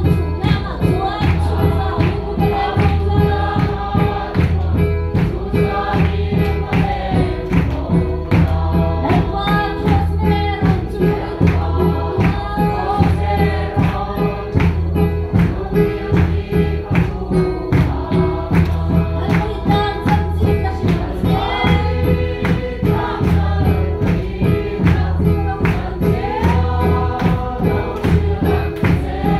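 A congregation singing a gospel song together, clapping along to a steady beat over a low bass accompaniment.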